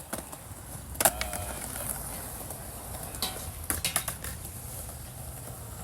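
A few sharp clacks of skateboard and scooter decks and wheels hitting concrete: one about a second in and a quick cluster around three to four seconds in, over a low steady background noise.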